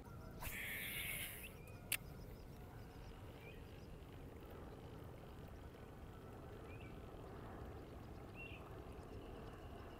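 Faint outdoor background with a few short, faint animal chirps spread through it, and a brief rush of noise about half a second in followed by a single click near two seconds.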